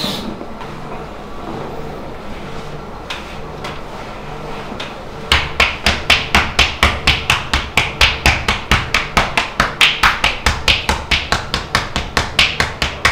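Rapid, even rhythm of percussive massage strikes, hands slapping and tapping on the body about five times a second, starting about five seconds in. Before that there is only a steady low background hum.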